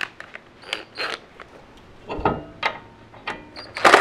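Metal tools being handled: a string of clinks and rattles, several with a brief metallic ring, as sockets and tools knock together. Just before the end a loud, harsh burst sets in.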